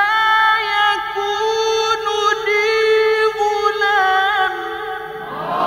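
A male reciter's voice holding a long, ornamented line of mujawwad-style Quran recitation, the pitch turning and wavering in melisma. Near the end the line stops and the listeners break into a burst of exclamations.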